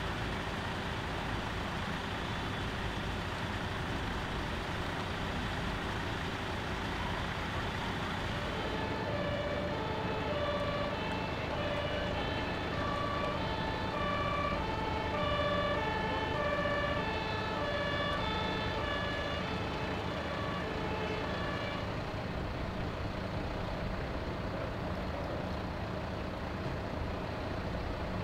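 A German emergency vehicle's two-tone siren (Martinshorn) starts about nine seconds in, stepping back and forth between two pitches. It grows louder, then fades, and stops a few seconds before the end. A steady engine rumble runs under it.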